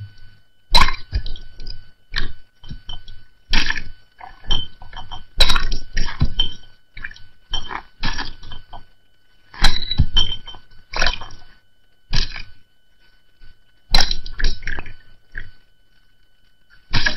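Raw eggs cracked one after another against the rim of a glass. Each goes as a sharp crack followed by a short spill of shell crackling and egg dropping into the glass, repeated every second or two.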